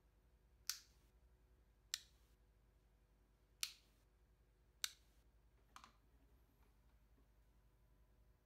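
In-line cord switch on a lamp's power lead being clicked on and off: four sharp clicks a second or so apart, then a fainter double click.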